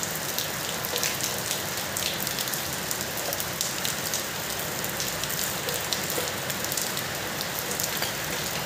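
Steady rain falling, an even hiss dotted with many small drop ticks.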